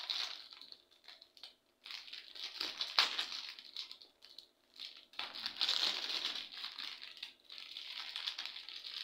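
Clear plastic bag of soil crinkling as hands squeeze and work at it, in three spells of rustling with short pauses between, the longest in the second half.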